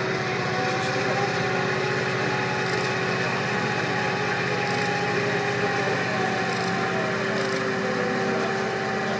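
Crane's engine running steadily under load as it hoists a steel beam, a continuous engine drone with a steady hum over it.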